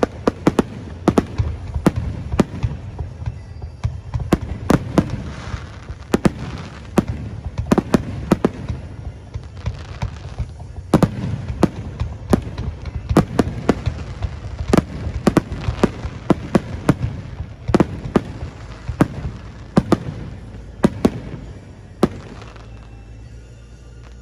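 Fireworks going off in rapid, irregular succession: many sharp bangs, a few every second, thinning out near the end.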